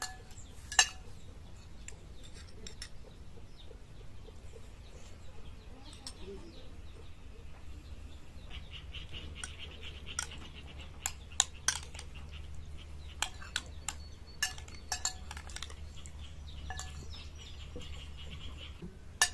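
Spoons and cutlery clinking against dishes during a meal: scattered sharp taps, most of them in the second half, over a low steady hum.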